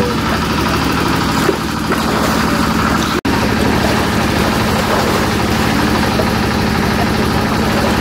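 Steady low hum of an engine running without change; the sound cuts out for an instant about three seconds in.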